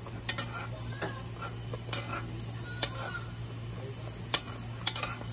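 Fry bake dough sizzling in hot oil in a pan. A metal spoon clicks against the pan every second or so while it stirs and ladles hot oil over the dough to make it puff.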